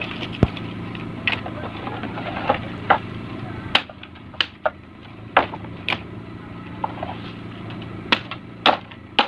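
Machete chopping thin dry wooden sticks into short lengths: about a dozen sharp chops at an irregular pace.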